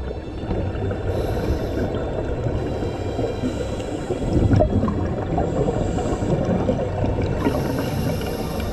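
Scuba divers underwater: a steady low rumble of water with gurgling exhaled bubbles and short regulator hisses every few seconds.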